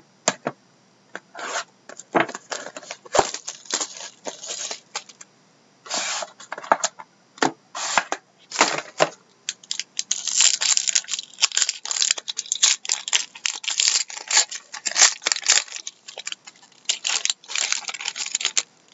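A sealed trading-card box and the pack's wrapper being torn and crinkled open by hand: many short ripping and crackling bursts, scattered at first and almost continuous through the second half.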